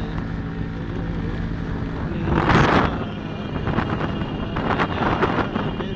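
Motorcycle engine running at road speed, with wind buffeting the microphone. A loud rush of wind noise comes about two and a half seconds in, then a run of short crackling buffets.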